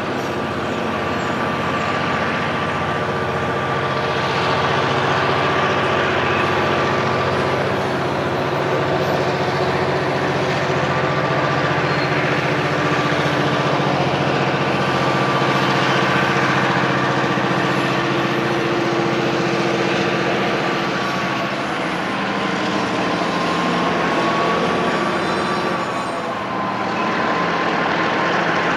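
End-cab diesel switcher locomotive running hard under load as it moves a string of rail cars, a steady engine drone with a high whine above it. The wheels and cars roll along the rails with it.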